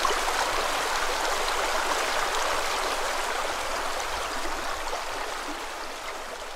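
Stream water rushing steadily over rocks, slowly fading out toward the end.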